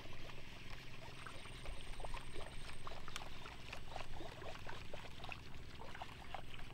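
Fishing reel being wound in during a lure retrieve: a patter of small, irregular clicks and ticks, faint, over a low steady hum.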